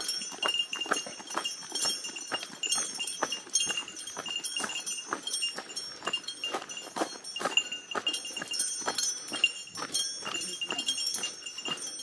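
Small metal bell, such as a hiker's bear bell, jingling with each step while walking, a short ringing stroke every fraction of a second.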